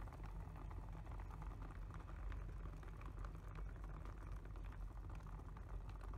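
San Ace PWM cooling fan running steadily and blowing air up a clear tube: a faint, even low hum with air noise.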